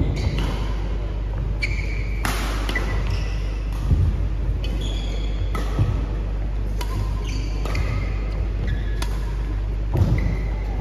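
Badminton doubles rally: rackets strike the shuttlecock every second or two, and shoes give short high squeaks on the court mat in between, over a steady low hum.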